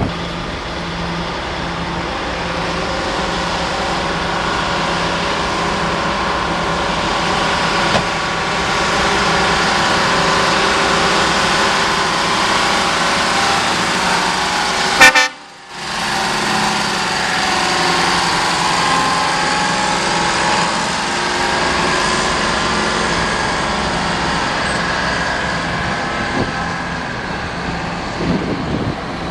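Heavy diesel truck engine running as the truck drives past and pulls away, growing louder over the first several seconds. It breaks off with a sharp click and a brief gap about halfway through, then carries on.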